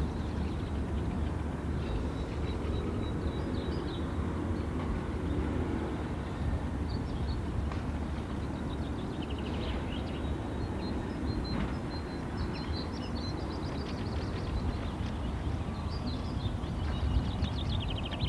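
Wild birds chirping and trilling in scattered short bouts, heard over a steady low rumble.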